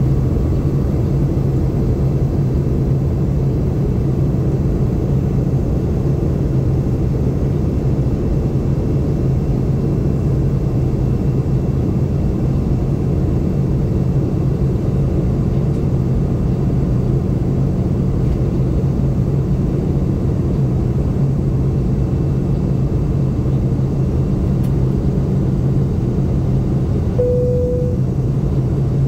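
Steady cabin noise of a Boeing 717 in flight, its rear-mounted Rolls-Royce BR715 turbofan engines giving a constant low drone. A short steady tone sounds about two seconds before the end.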